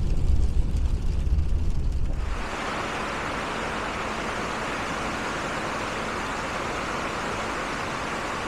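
A low vehicle rumble that fades out about two seconds in, then steady rain falling as an even hiss.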